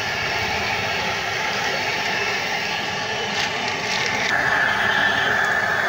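Chicken burger patties frying in a shallow pool of oil on a large flat griddle: a steady sizzle, with a few light clicks a little past the middle.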